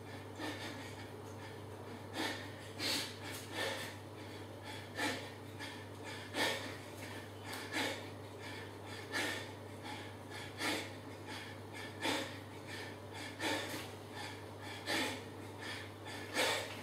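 A man breathing hard and fast in short forceful puffs, in a quick regular rhythm, from the strain of rapid push-ups late in a flat-out one-minute set. A low steady hum runs underneath.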